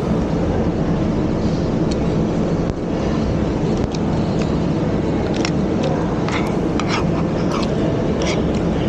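Steady low background din, with several light clinks of a metal spoon and fork against plates, most of them from about five seconds in.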